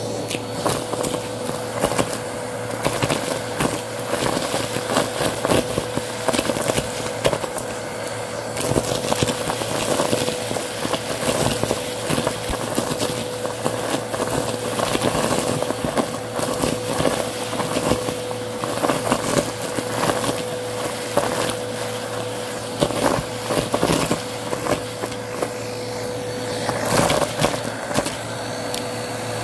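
Bissell CleanView vacuum running with a steady motor whine while its hose tube sucks up small hard debris (shell pieces, beads, buttons) from carpet. A constant crackle of rattling clicks comes from the pieces being pulled in.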